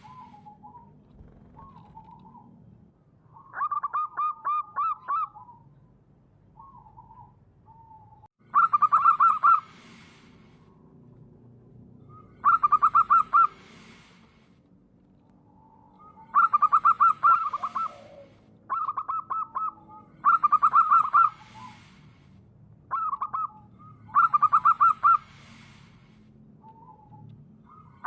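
Zebra dove (perkutut) cooing: about eight loud bursts of rapid, staccato coo notes, each lasting about a second, with softer single coos between them.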